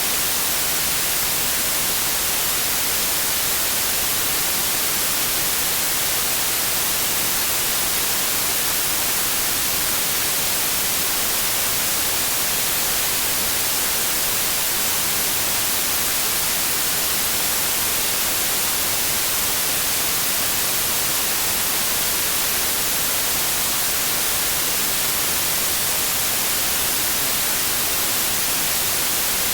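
Steady synthetic white noise: an even hiss spread across all pitches, constant in level with no changes or events.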